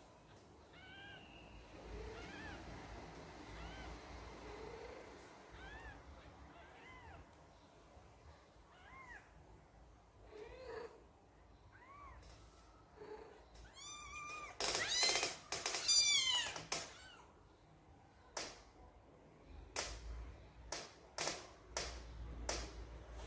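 Newborn kitten mewing: short, high little cries about once a second, then a run of louder, longer meows about two-thirds of the way through. A few sharp knocks near the end.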